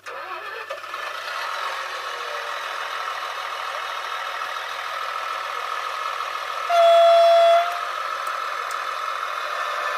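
Digital sound decoder in a Märklin 37733 Lint model railcar playing its diesel railcar sound through the model's small loudspeaker: the engine sound switches on suddenly and runs steadily while the model stands still. About seven seconds in, a single horn blast sounds for about a second.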